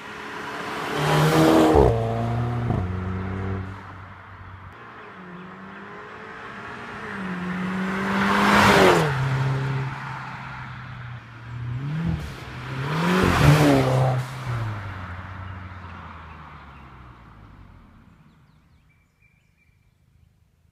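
VW Golf Mk6 GTI's 2.0-litre turbocharged four-cylinder heard through a Milltek 2.75-inch non-resonated cat-back exhaust. The car passes close three times, each pass rising to a loud peak and dropping in pitch as it goes by. It then fades away into the distance near the end.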